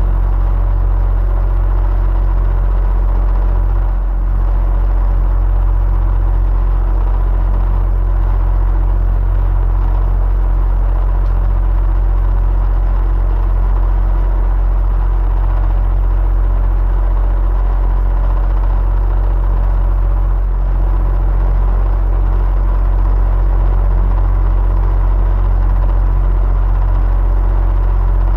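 Electric fan running steadily: an even, deep rumble of moving air with a faint steady hum over it.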